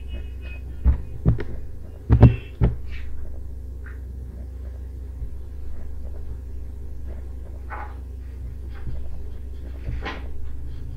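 Steady low hum with several dull thumps about one to three seconds in, and a few softer brief knocks and rustles later on.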